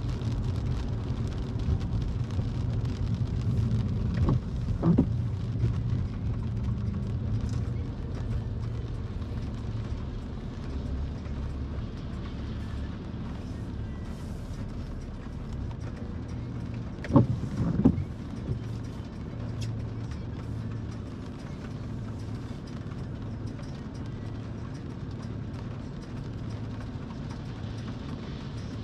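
Car interior noise, a low steady rumble that eases off after the first several seconds as the car slows to a stop and idles. Two sharp knocks come a little over halfway through.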